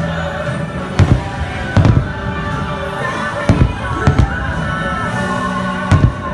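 Aerial fireworks going off in a series of sharp, loud bangs, about five in all, over steady music from the fireworks show.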